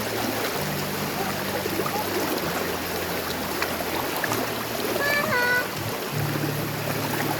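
Rushing river water under background music with a slow, changing bass line; a brief voice call about five seconds in.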